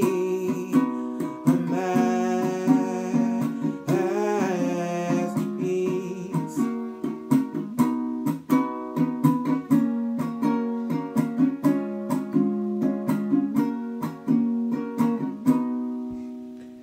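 Ukulele strummed in a steady rhythm through a chord progression. The last chord is left to ring and fades away near the end.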